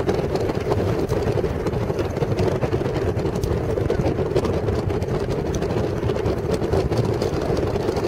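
Steady engine and road noise of a moving road vehicle, heard from on board, with a strong low drone that holds level throughout.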